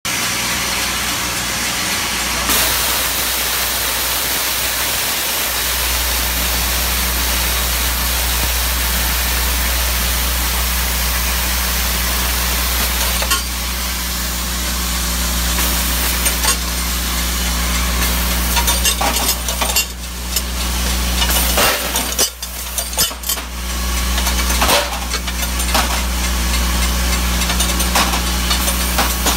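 Automated head-crack sorting machine running, a steady low hum with a broad hiss. In the second half, irregular metallic clicks and knocks come from the mechanism as it handles the parts.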